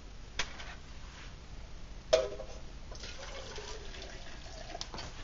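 Water just off the boil being emptied out of a metal cook pot: a light clink as the pot is lifted off the stove, a knock about two seconds in, then water pouring out for a couple of seconds.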